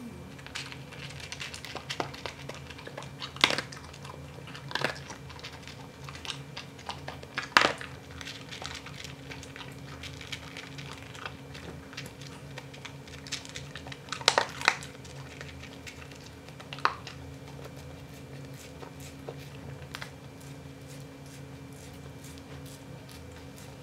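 Dachshund chewing dry kibble, with scattered sharp crunches and many fainter ones. A steady low hum runs underneath.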